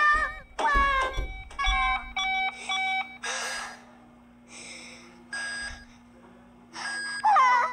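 Cartoon sound effects: a cartoon cat's wavering, meow-like cries, then a run of short electronic beeps, three short breathy puffs, and another quick sliding cry near the end.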